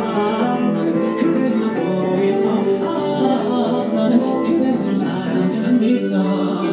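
Instrumental passage of a trot ballad, with guitar playing, between sung lines.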